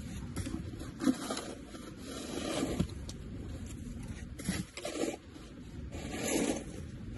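Snow shovel scraping along the ground and pushing snow, several separate strokes about one to two seconds apart, with a short sharp scrape about a second in.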